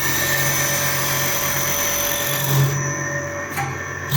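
Wood lathe running with a steady motor hum while a cutter shaves the spinning wood with a broad hiss. About two and a half seconds in the hiss drops away, leaving the hum, with a short click near the end.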